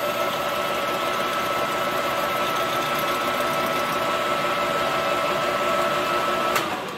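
Old Colchester Master metal lathe running steadily with a high whine, spinning a chainsaw cylinder in its chuck. Near the end there is a sharp click, the whine stops and the lathe begins to spin down.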